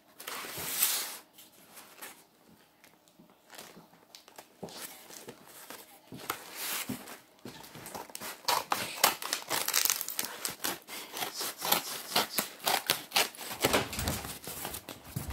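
Brown paper parcel wrapping and plastic crinkling and tearing as the parcel is cut open with scissors and unwrapped. The rustling is sparse for the first few seconds, then busier from about eight seconds in.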